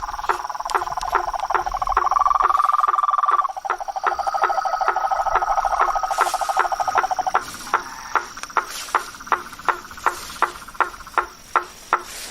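Night marsh frog chorus: blacksmith tree frogs (sapo-martelo) give sharp knocking calls about three a second. Under them runs a continuous trilling chorus of other frogs that fades out a little past halfway, with a steady high insect whine throughout.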